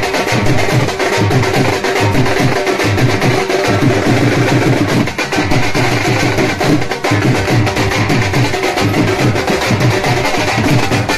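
Dhol drums played in a fast, steady dance rhythm, with dense, evenly spaced strokes.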